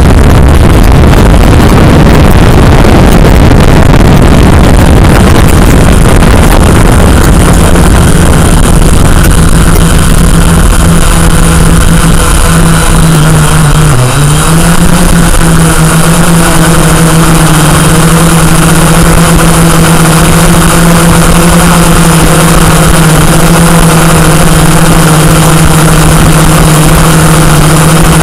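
Multirotor drone's motors and propellers humming loudly and steadily, with one main pitch and its overtones, and a brief dip in pitch about halfway through.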